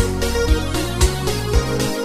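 A music track with a heavy kick drum about twice a second over a deep bass line, with a melody of pitched notes above.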